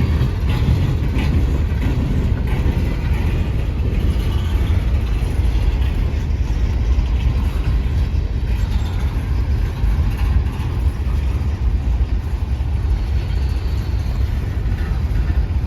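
Freight train rolling past with a steady low rumble of wheels on rail, with a few light clicks in the first couple of seconds.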